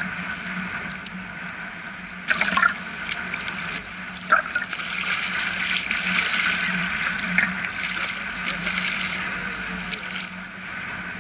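Choppy sea water washing around a wading angler's legs, with a hooked sea trout splashing at the surface close by, loudest in the middle stretch. Two short sharp sounds stand out, about two and a half and four seconds in.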